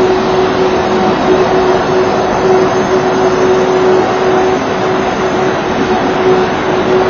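Loud steady mechanical drone: an even rushing noise with a constant humming tone that does not change.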